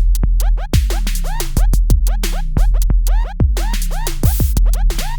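Electronic music with a heavy deep-bass beat about once a second and fast repeated falling sweeps like record scratches, played on an XDOBO Draco Mini Bluetooth speaker for a sound test.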